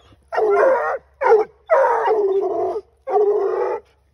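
A coonhound barking at the base of a tree, four loud drawn-out barks, one short and one over a second long: treeing barks, the sign that the hound has game up the tree.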